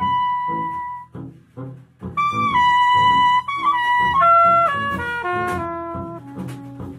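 Free jazz combo: a saxophone holds a high note that breaks off about a second in. About two seconds in it starts a phrase of long held notes that steps downward, over drums with cymbal strokes and bass.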